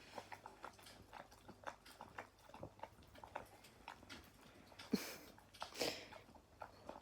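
German Shepherd eating a dinner of roast chicken and potatoes from a bowl: faint chewing with a steady run of small wet clicks, and two louder noises about five and six seconds in.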